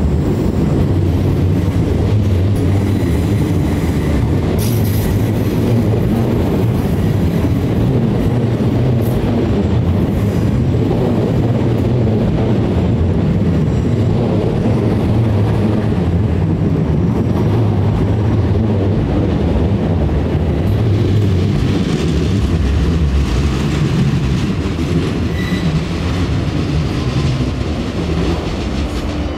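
South Western Railway third-rail electric multiple unit running alongside the platform: a steady low rumble of wheels on rail with clattering over the rail joints, easing off a little near the end.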